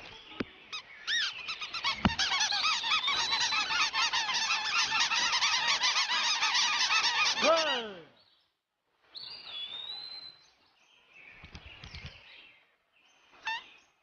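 A flock of cartoon birds squawking and chirping over one another in a dense, chattering din. It ends suddenly with one falling squawk about eight seconds in, and only a few scattered calls follow.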